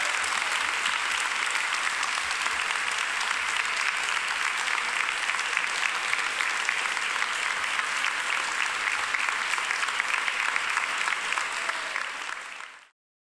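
Large audience applauding steadily after a keynote speech, fading out and cutting off shortly before the end.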